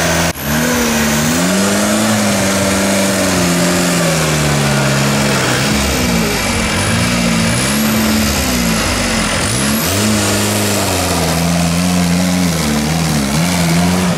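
Off-road buggy's engine revving hard through deep mud, its pitch rising and falling over and over, with a brief break just after the start.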